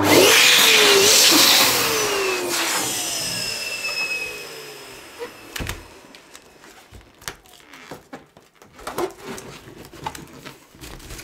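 Electric balloon pump inflating a latex balloon, loudest at the start, then dropping in pitch and fading over about five seconds. Faint rubbing and clicks follow as the balloon is knotted.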